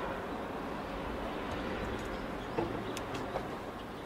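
Steady outdoor background noise with a few short chirps and clicks about two and a half to three and a half seconds in.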